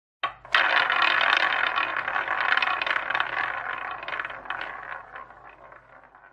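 Roulette wheel spinning with the ball rattling and clicking around it. It starts with a single click, then a dense clatter sets in and gradually fades out.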